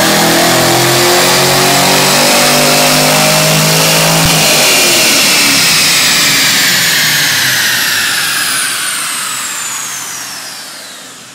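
A 2010 Chevrolet Camaro on a chassis dynamometer running hard at the top of a pull. About four seconds in, the throttle closes with a click and the engine note drops away, leaving the tyres and dyno roller spinning down with a whine that falls in pitch and fades.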